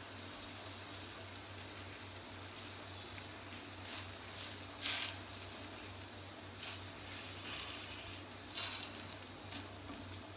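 Stuffed kulcha sizzling in butter on a hot flat griddle (tawa) as a metal spatula presses it down. The steady sizzle swells briefly a few times, most plainly about five and eight seconds in.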